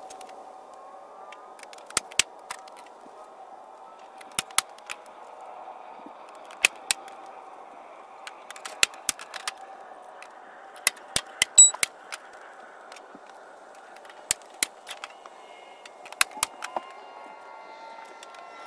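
Staple gun firing staples into thin wooden slats: a series of sharp snaps, often in quick pairs, spaced irregularly throughout.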